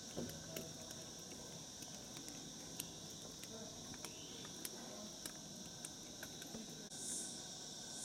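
Insects in the rainforest giving a steady, high-pitched chirring drone, with a few faint clicks. A second, higher-pitched insect hiss joins about a second before the end.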